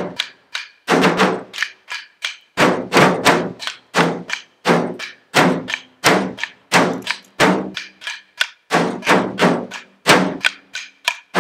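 Two people beating wooden sticks on a sheet of metal laid on the ground, an uneven run of hard strikes about three or four a second, each with a short metallic ring.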